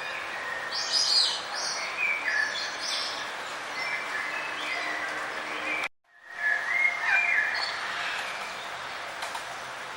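Songbirds chirping in short, quick phrases over a steady outdoor background hiss. The sound cuts out for a moment about six seconds in, then the chirping resumes.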